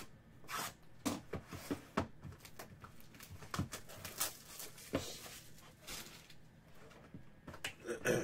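Plastic shrink wrap crinkling and tearing as a sealed baseball card box is unwrapped and its cardboard lid opened, a string of irregular crackles and rustles with a few sharper snaps.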